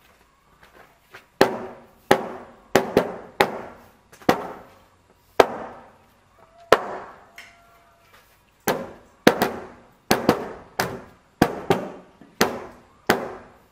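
Hand digging tools, hoe blades, striking hard, stony ground. The sharp blows come at an irregular pace, roughly one or two a second, each with a short metallic ring. They begin about a second and a half in.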